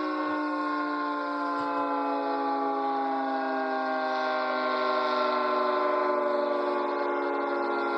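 Civil defense warning siren sounding a chord of tones that slowly falls in pitch, swelling in loudness a little past the middle.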